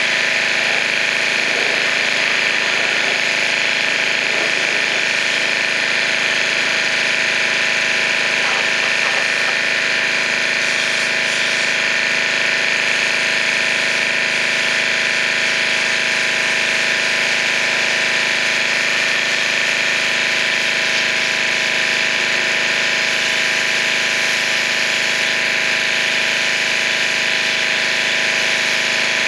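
Pressure washer running steadily: a constant motor drone under the hiss of the high-pressure water spray.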